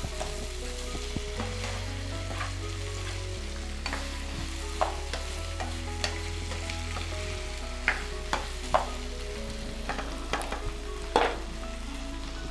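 Vegetables sizzling in a non-stick frying pan on a gas hob while a spatula stirs them, with several short clicks and knocks as the spatula strikes the pan, most of them in the second half.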